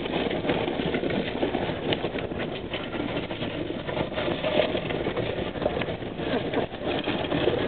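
A vehicle's engine running under load as it tows a wrecked pickup on a strap along a wet gravel road. Gravel crunches and clatters under the tyres, with many small irregular knocks.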